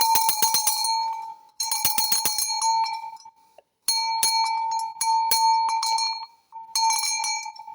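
A metal bell shaken in four quick bouts, its clapper striking rapidly. Each bout leaves a steady ring at a pitch placed between G sharp 5 and A sharp 5.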